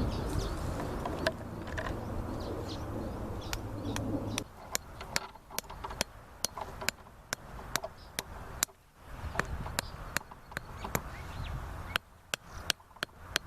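A series of sharp, irregular chopping knocks, a few a second, beginning about four seconds in. Before them there is a steady low rumble with faint bird calls.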